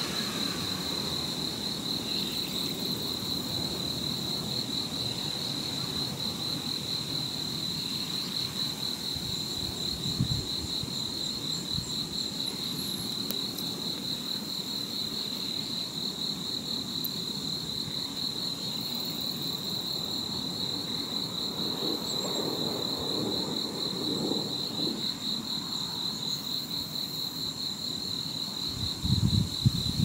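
An insect trilling without a break at one steady high pitch, in a fast pulsing rhythm, over a low rumble of wind with a couple of brief low thumps.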